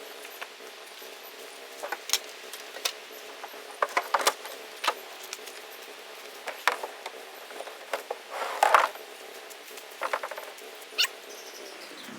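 Pipe pieces and fittings being handled and fitted together for a rack frame: irregular light clicks and knocks, with a brief scraping rattle about eight and a half seconds in.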